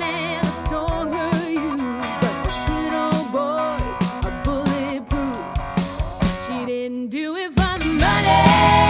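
Background music: a rock song with singing, guitar and drums, growing louder near the end.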